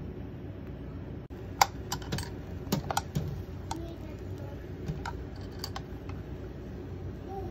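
Enoki and egg frying inside a closed hot sandwich maker over a gas flame: irregular sharp crackling pops, thickest in the middle few seconds, over the burner's steady low rush.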